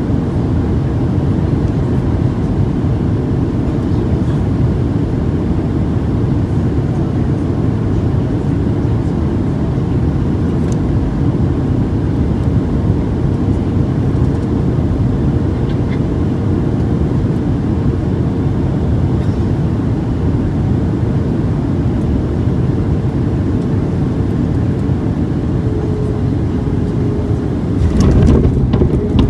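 Steady cabin rumble inside a Boeing 737-700 on the ground after landing, its CFM56 engines running with the wheels rolling; the rumble grows louder with a few knocks near the end.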